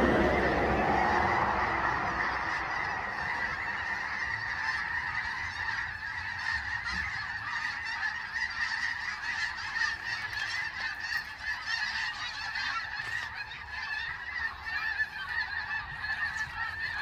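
A large flock of wild geese flying overhead, many birds honking at once in a dense, continuous chorus, loudest in the first couple of seconds.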